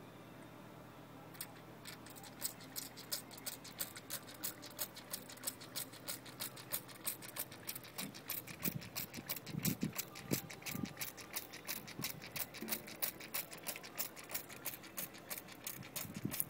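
Hand-pumped water spray bottle squirting over and over, about four quick spritzes a second, as a cat drinks from the spray. There are a few low, soft bumps near the middle.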